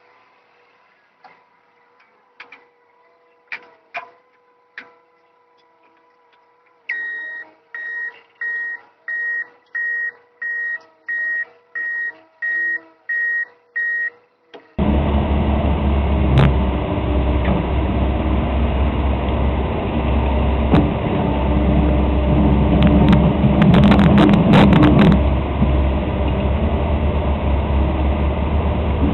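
A reversing alarm on heavy equipment beeping at a steady pitch, about one and a half beeps a second for several seconds, after faint scattered ticks. It then cuts abruptly to a loud, steady heavy engine running.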